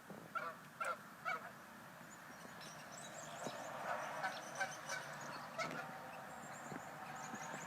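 Geese honking, a few short calls in the first second and a half, then a faint outdoor background with scattered high chirps.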